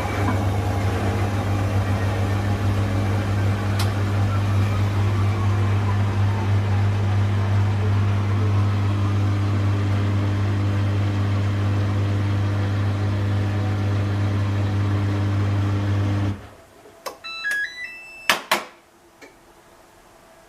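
Gorenje WPAM74SA1T washing machine running with a steady mechanical hum and a faint whine falling in pitch near the start. The hum cuts off abruptly about three-quarters of the way through. A few sharp clicks and a short run of electronic beeps follow.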